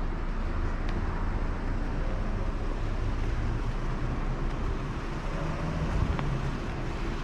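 Steady low rumble of road traffic, with a faint click about six seconds in.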